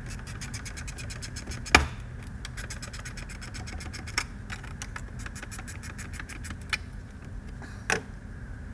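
Ratchet wrench clicking rapidly, about eight clicks a second, in short runs, as a car battery terminal clamp nut is worked. A sharp metallic clink about two seconds in is the loudest sound, and a few lighter knocks of the tool follow.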